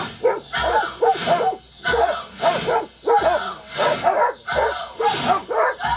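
Puppies barking and yipping as they wrestle in play, short barks coming in quick runs of two or three, over and over.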